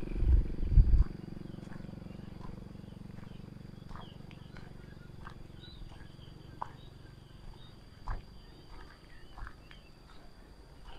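Rural outdoor ambience: a low engine hum fades away over the first few seconds, then small birds chirp repeatedly over a steady high-pitched whine. A few heavy thumps at the very start are the loudest sounds.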